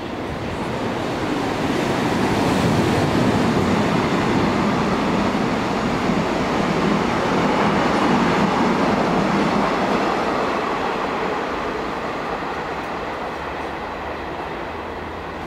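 A locomotive-hauled Saemaeul-ho passenger train passing on the rails, its wheels and running gear making a steady rumble. The rumble builds over the first few seconds, holds loud through the middle, then fades as the train draws away.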